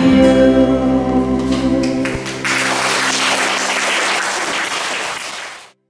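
The last held chord of a sung pop song rings out and fades, then applause and clapping come in about two and a half seconds in, and everything cuts off abruptly just before the end.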